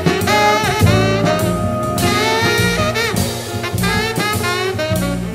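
Background music: an instrumental break in a jazzy blues song, with a saxophone playing the lead line over bass and drums.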